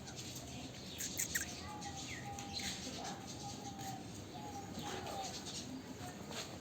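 Caged birds chirping and calling together: many short, quick chirps overlapping, with a few brief held lower notes among them.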